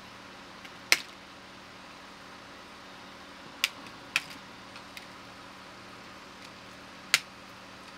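Sharp plastic clicks as small wire-harness clips are pried and snapped loose from the plastic cover of a Ford EV battery module: one about a second in, two close together near the middle, one near the end, with a few fainter ticks between. A faint steady hum runs underneath.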